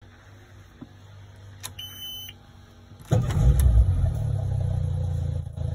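Mercury outboard motor started with the ignition key: a brief high electronic beep about two seconds in, the warning horn's key-on test, then about three seconds in the engine cranks, catches and settles into a steady idle.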